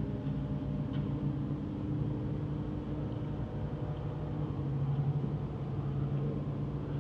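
Steady low machine hum, an even pitched drone that holds without change and has no speech over it.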